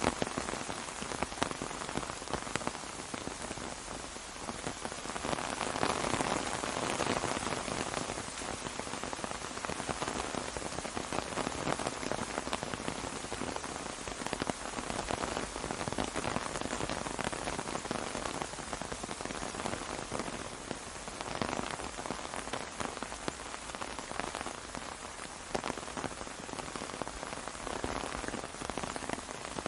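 Steady rain falling on an umbrella, with many close individual drop hits over the continuous wash of rain, swelling a little about six seconds in and again around twenty seconds.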